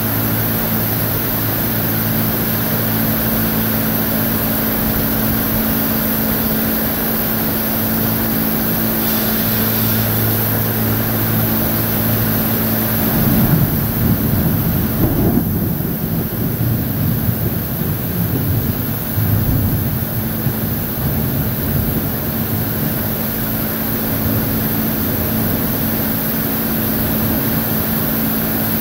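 Heavy rain and wind of a severe thunderstorm, with a steady low engine hum beneath. About halfway through, a louder low rumble swells and fades over several seconds.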